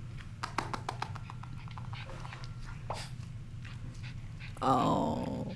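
Small pet dog vocalizing, with a falling whine near the end, over light clicking sounds.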